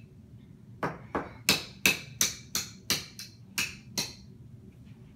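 A toddler banging a hard toy on a wooden play table: a quick run of about ten sharp knocks, roughly three a second, each with a short ring, starting about a second in.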